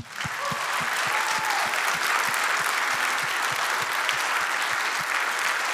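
A congregation applauding: many people clapping together in a steady, even round of applause.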